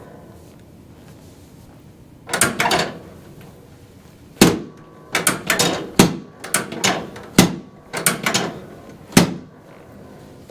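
Series of sharp cracks and knocks during a chiropractic adjustment of the hips and lower back: about a dozen sudden strikes in irregular clusters, starting about two seconds in and ending near the end.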